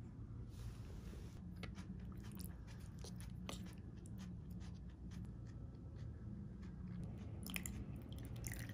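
Someone chewing a crisp breaded croquette close up, with scattered crunches and small clicks of wooden chopsticks against a cup of instant noodles. Near the end a plastic seasoning packet crinkles as it is squeezed out, over a steady low room hum.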